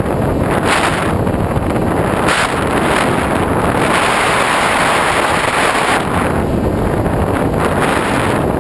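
Steady airflow rushing over the microphone of a GoPro mounted on a foam RC glider in flight, swelling louder in the middle.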